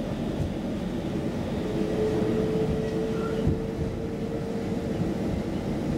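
Stockholm Metro C20 train running at speed, heard from inside the carriage: a steady rumble of wheels on track. A steady whine joins in about two seconds in and fades out near five seconds.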